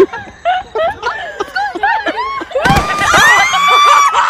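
Excited human voices calling out in short rising-and-falling cries, then a thud a little past halfway and a long high scream that rises and holds.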